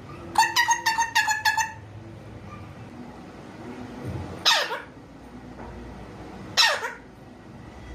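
Parrot calling: a quick run of about eight short chirps in the first two seconds, then two loud downward-sliding squawks about two seconds apart.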